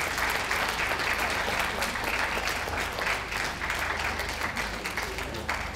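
Audience applauding steadily, a dense patter of many hands clapping in support of a dog being moved round the show ring.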